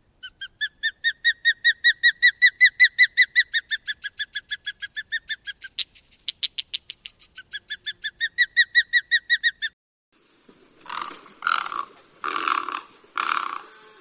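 Osprey calling: a long run of short, high whistled notes, about five a second, breaking briefly into a faster chattering run about six seconds in before the whistles resume. From about eleven seconds in, a great egret gives four harsh croaks, roughly one a second.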